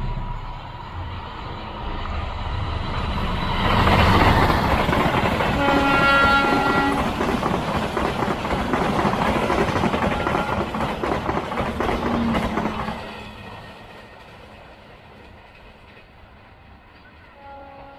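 Passenger train passing close by: the rumble and clatter of its wheels swell about four seconds in, with a short horn blast about six seconds in. The train then runs off and fades away.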